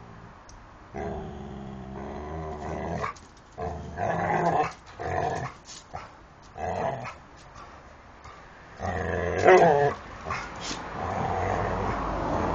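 Two dogs growling at each other in rough play, in several growling spells with short quiet gaps between them.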